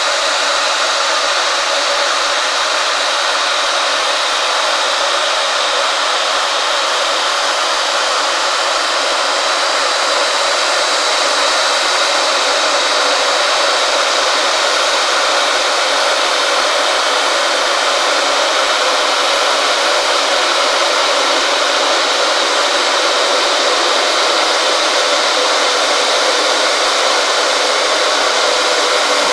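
Electric kettle heating water toward the boil: a steady hissing rush from the water inside, growing slightly louder.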